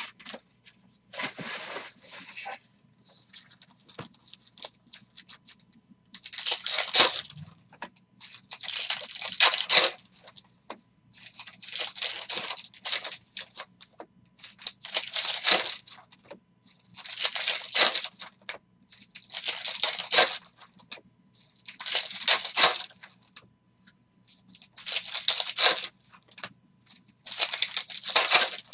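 Foil wrappers of Topps Chrome Platinum baseball card packs being torn open and crumpled, one pack after another: a crackling rustle about every two to three seconds, each lasting about a second.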